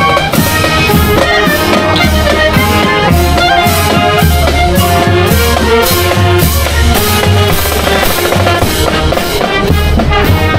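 Marching band playing: snare and bass drums keep a steady beat under brass instruments carrying the tune.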